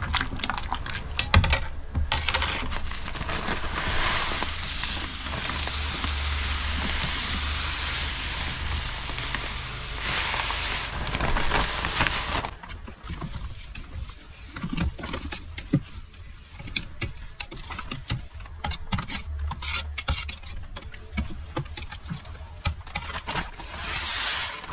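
Crushed malt poured from a bag into mash water in a stainless steel malt pipe: a steady rush for about ten seconds. Then a metal paddle stirs the grain in with scattered clicks and knocks against the pipe, and a short second pour comes near the end.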